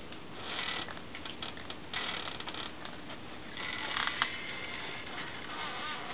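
Raccoon kits chittering and squealing in several short, scratchy bursts, with a wavering trill near the end.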